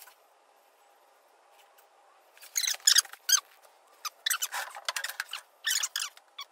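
A run of short, high-pitched squeaks in irregular clusters, starting about two and a half seconds in.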